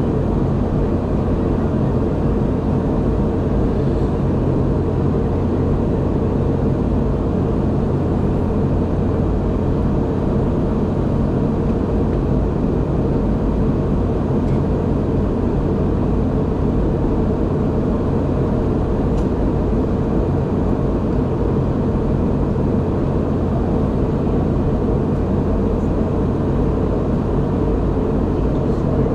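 Steady cabin noise of a Boeing 717-200 airliner in flight, heard from a window seat: an even, unchanging rush with a low hum from its two tail-mounted Rolls-Royce BR715 turbofans.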